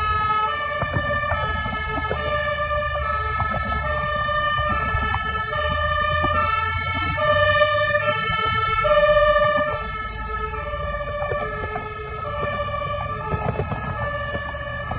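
A fire engine's two-tone siren (German Martinshorn) switching back and forth between two pitches as the vehicle moves off on a call, with the truck's engine rumbling underneath. It is loudest about halfway through, then drops back a little.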